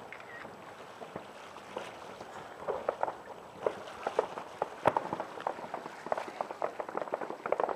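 Fireworks going off: a few sharp bangs of bursting shells, about a second in and near the five-second mark, with dense crackling from about three seconds in.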